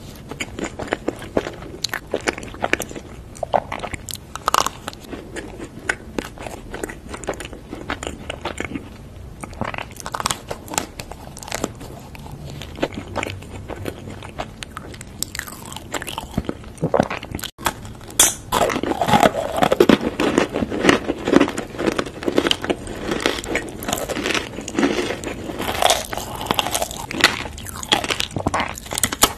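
Close-miked eating: biting, crunching and chewing chocolate snacks. The crunching turns louder and crisper in the second half, from bites of a chocolate-coated biscuit stick.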